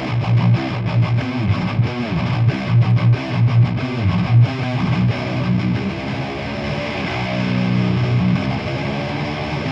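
High-gain distorted electric rhythm guitars through the Brainworx Diezel VH4 amp-sim plugin, two guitars playing the same riff with the gain backed off a little. Tight chugging notes with short stops for the first half, then long held chords from about five seconds in.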